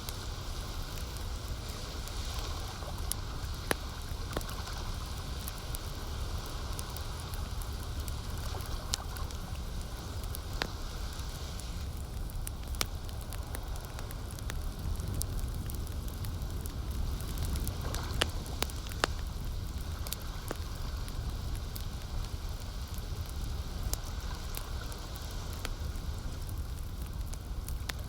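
Campfire crackling, with sharp pops and snaps of burning wood at irregular intervals over a steady low rumble.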